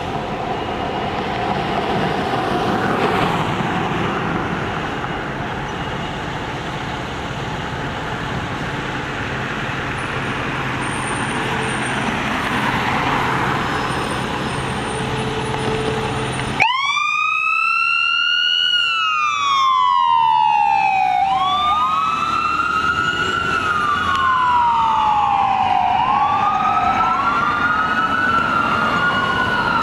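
Fire engine's diesel running as it pulls out of the station, with a rushing noise that swells and fades twice. Just past halfway the sound cuts abruptly to the truck's two electronic sirens in wail mode, out of step with each other: each falls slowly and then sweeps back up, overlapping.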